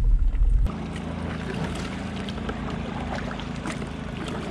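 Motorboat engines running steadily, a low drone with a faint hiss over it. A heavy low rumble cuts off suddenly under a second in.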